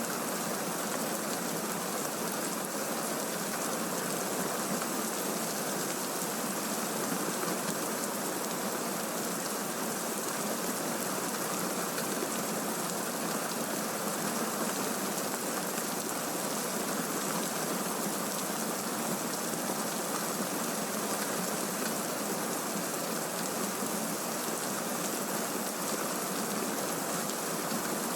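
Steady rain from a thunderstorm recording: an even, unbroken hiss of rainfall with no thunderclaps.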